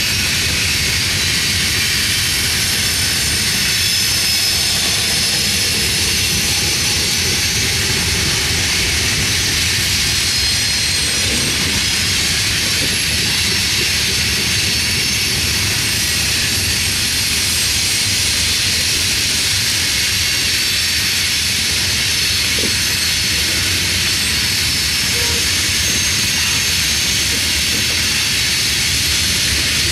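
Freight train's covered hopper cars rolling steadily past: a continuous rumble of steel wheels on rail with a bright hiss and faint high-pitched ringing tones over it.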